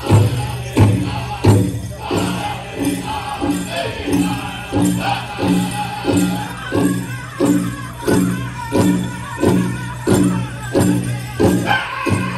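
Powwow drum group singing over a steady unison beat on a large drum, about one and a half strokes a second, with the bells of the dancers' regalia jingling. A higher lead voice comes in near the end.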